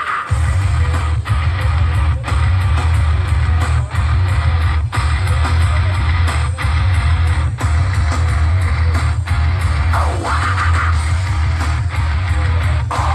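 Loud rock music with guitar over a very heavy, steady bass, played through a car audio system tuned for sound-pressure contests.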